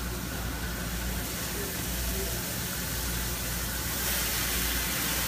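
Food sizzling on a hibachi griddle: a steady hiss over a low rumble, growing louder about four seconds in.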